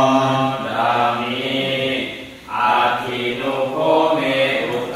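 Buddhist devotional chanting: voices reciting together in a steady cadence, with a short pause for breath a little past two seconds in.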